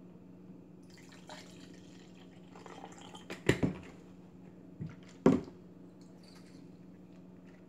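Juice poured from a glass bottle into a plastic cup, then bottles and caps handled and set down on a counter, with a few sharp clacks in the middle. The loudest clack comes a little past halfway, over a steady low hum.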